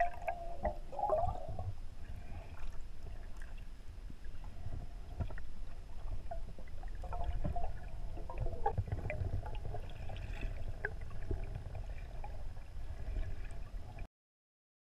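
Underwater sound heard through a camera's waterproof housing: a steady low rumble of moving water with scattered small clicks and knocks. It cuts off suddenly near the end.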